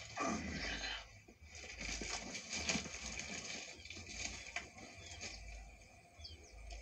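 Irregular rustling and scraping, with a few small clicks, as a wrapped brick-shaped package is handled and checked. Faint short bird chirps sound twice in the second half.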